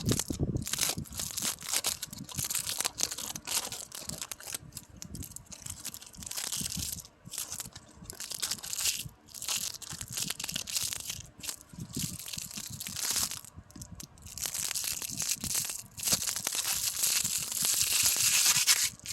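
Close-up rustling and crinkling for ASMR, a crackly handling noise in irregular stretches with short pauses, loudest near the end.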